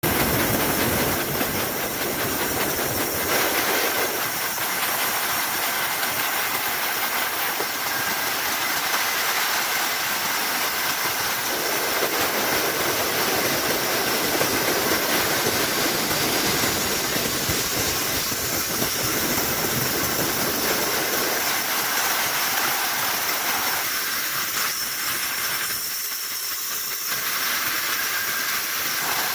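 Bandsaw running and cutting through a thick wooden slab: a steady hissing noise, its tone shifting abruptly a few times.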